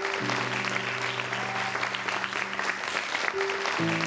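A crowd of guests applauding steadily, with soft background music of held low chords underneath that change about a quarter of a second in and again near the end.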